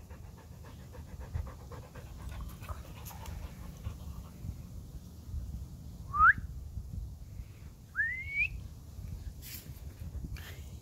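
Alaskan husky panting, with two short rising whistle-like squeals about six and eight seconds in.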